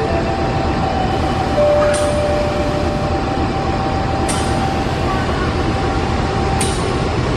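Diesel-hauled passenger train moving slowly through the station: a steady rumble with a thin steady whine over it, and a sharp metallic click about every two seconds.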